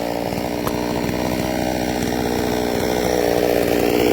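Chainsaw on a vertical chainsaw mill running steadily while ripping a log lengthwise, growing louder near the end.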